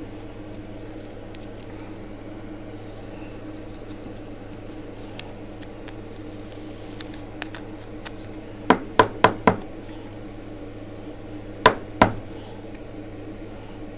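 Four quick sharp knocks in a row, then two more about two seconds later, over a steady low hum in a small room.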